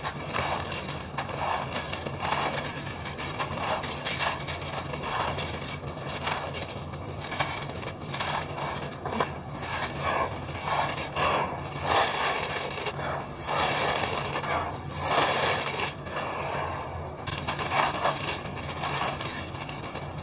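Dry sand-cement lumps crushed and crumbled by hand: irregular gritty crunching as the chunks break, with powder and grit rubbed and sifted through the fingers.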